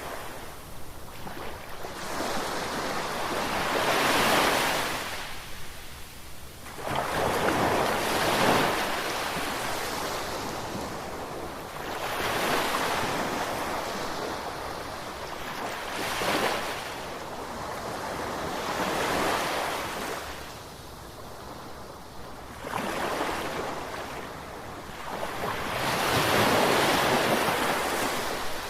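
Ocean waves breaking and washing onto shore in a steady hiss that surges and falls back about seven times, every three to four seconds.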